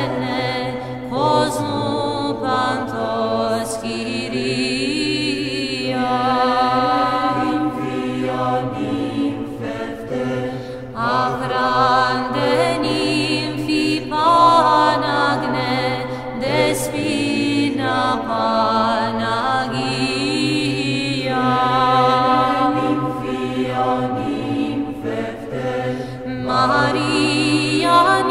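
Orthodox Byzantine-style choral chant: a held low drone under a melismatic sung melody line, in phrases that swell and fall.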